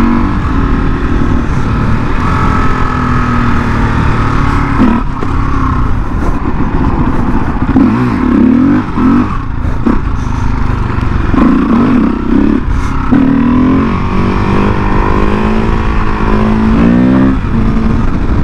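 Supermoto motorcycle engine running under way, its pitch shifting up and down several times as the throttle and gears change, with a quick rise in revs near the end.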